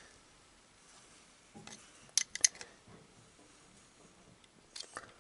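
Sharp metallic clicks and taps of a 10 mm wrench working the nut on a starter motor's terminal bolt: a quick cluster about two seconds in and a few more near the end.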